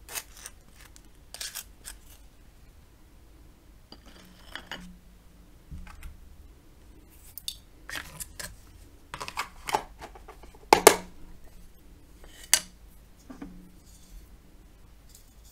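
Wooden butter knife scraping butter across crisp toast in short rasping strokes, followed by scattered clicks and knocks of the knife and toast against a plate and bowl; the loudest knock comes about eleven seconds in.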